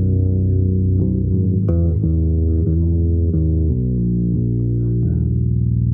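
Bass guitar playing an improvised line of low notes that change every half second or so.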